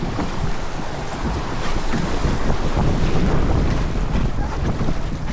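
Wind buffeting the microphone aboard a racing sailboat, over the rush of water along the hull: a steady, gusty rumble with no break.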